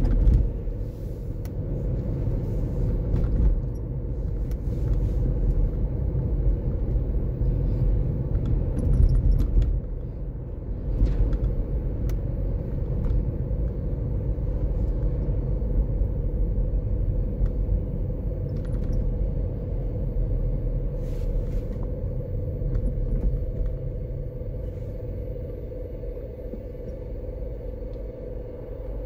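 Low road and engine rumble heard inside a moving car, with a steady hum underneath and a few faint clicks. The rumble eases off over the last few seconds as the car slows in traffic.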